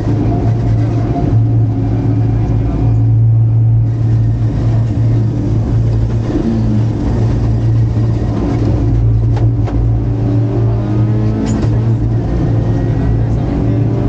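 Rally car's engine running hard, heard from inside the cockpit: a loud, steady low drone that climbs in pitch as the car accelerates in the second half, with two brief sharp knocks about nine and eleven seconds in.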